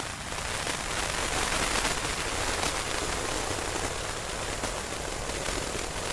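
Harsh noise music: a dense wall of hissing, static-like noise with scattered crackles, swelling up over the first second and then holding steady.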